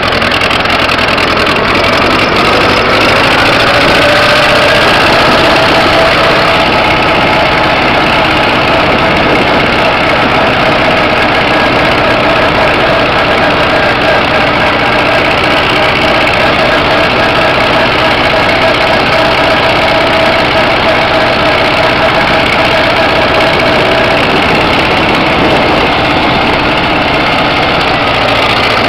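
1956 Farmall Cub's four-cylinder flathead engine running steadily while the tractor is driven. Its pitch rises over the first few seconds, then holds.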